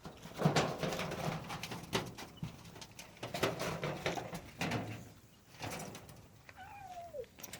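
Pigeons cooing, with repeated noisy bursts in between, in a small room. Near the end there is a short falling cry.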